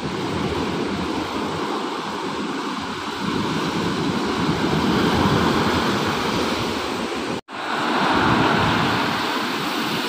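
Ocean surf washing up a sandy beach and breaking against rocks: a continuous rush of foaming water that swells and eases. It cuts out for an instant about seven and a half seconds in, then carries on.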